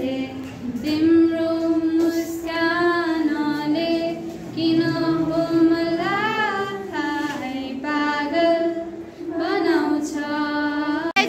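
A girl singing a song solo without accompaniment, in phrases of long held notes.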